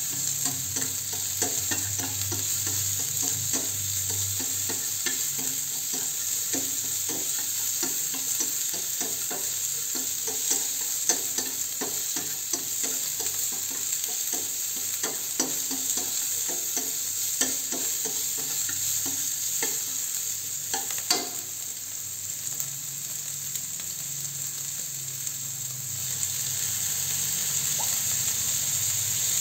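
Beef slices and garlic cloves sizzling in a hot nonstick frying pan as they are stir-fried, with frequent short knocks and scrapes of the utensil against the pan for the first twenty seconds or so, then mostly a steady sizzle.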